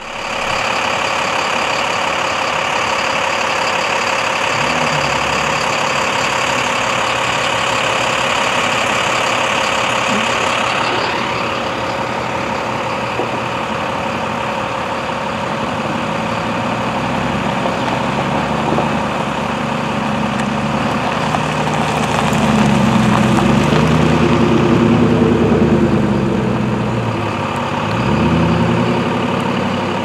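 Road traffic: cars and trucks idling and creeping along in a queue, with a heavy truck's engine running close by, loudest a little past the middle.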